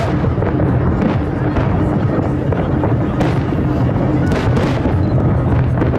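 Aerial fireworks shells bursting in a dense barrage: several sharp bangs over a continuous rumble. Music with sustained low tones plays underneath.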